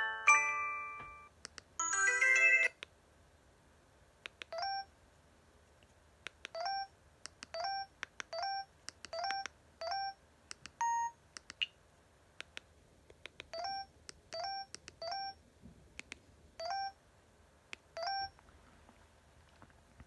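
Huawei ETS3 phone's small speaker playing preloaded ringtone previews. The end of one melodic electronic ringtone is followed by a brief second melody about two seconds in, then a sparse, uneven run of short electronic beeps, each with a slight upward chirp at its start, with faint clicks between them.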